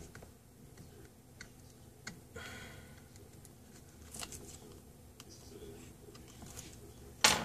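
Faint clicks and taps of tweezers and fingers working on the plastic and metal chassis of an open laptop, with a short rustle about two and a half seconds in and a sharp knock near the end.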